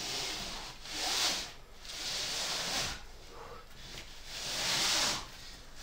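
A climber breathing hard while pulling through moves on an overhanging boulder problem: three long hissing exhalations.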